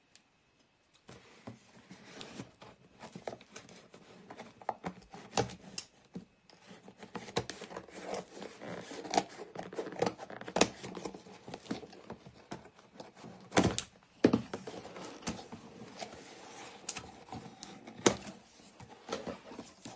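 A parcel being handled and unwrapped by hand: irregular rustling of packaging with many sharp clicks and knocks, starting about a second in.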